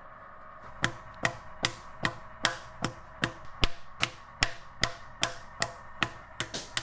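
Wooden paddle beating the clay wall of a large onggi jar: sharp knocks in a steady rhythm of about two and a half a second, starting about a second in.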